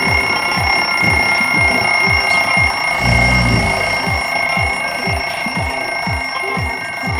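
Electronic music: a quick, even run of short falling bass notes, about two or three a second, under a steady high tone. A held low chord comes in about three seconds in.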